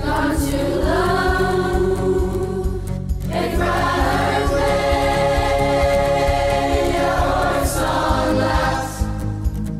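Large mixed choir singing Irish-language lyrics in long held phrases, over an acoustic folk-rock band of strummed guitars and banjo keeping a steady beat. The choir pauses briefly about three seconds in and again near the end before coming back in.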